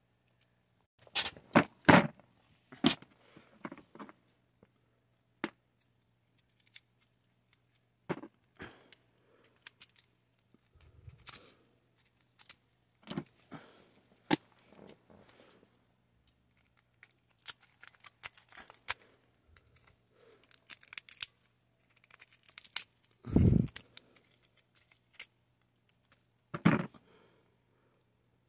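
Hand tools and small metal burner parts clicking, snipping and scraping at irregular intervals while a butane stove burner is taken apart, with a heavier knock well past the middle. A faint steady low hum runs underneath.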